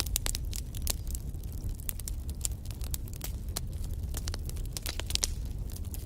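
Wood fire in a fireplace crackling, with many sharp pops, several a second, over a low steady rumble of the burning.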